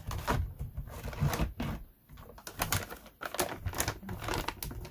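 Irregular clicks and crinkles of handling noise, closely spaced, with a short lull about two seconds in.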